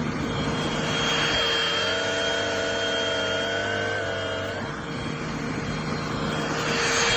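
Bissell Pet Hair Eraser cordless hand vacuum running, a steady motor whine over a rush of air. Its pitch shifts briefly about a second in, again around five seconds, and near the end.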